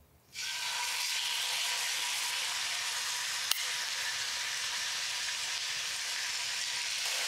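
Seasoned chicken thighs sizzling steadily in hot olive oil in a braiser as they are laid into the pan. The sizzle starts suddenly about a third of a second in, and a single sharp click comes about halfway through.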